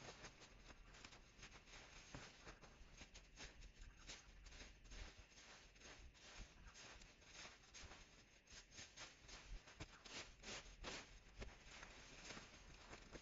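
Faint rustling and scraping as a rake is dragged through cut hedge clippings on a lawn and armfuls of leafy branches are gathered up. These are many small, irregular crackles, a little louder about ten seconds in.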